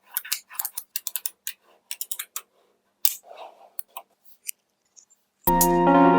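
Small magnetic balls clicking and snapping against one another in quick, irregular clicks as they are set in place; the clicks stop about four and a half seconds in. Music starts near the end.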